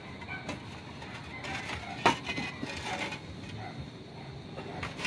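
Terracotta clay roof tiles knocking and scraping against each other as they are set in place by hand, with one sharp clack about two seconds in and another near the end.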